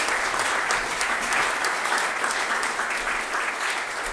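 Audience applauding: many people clapping at once, holding steady throughout.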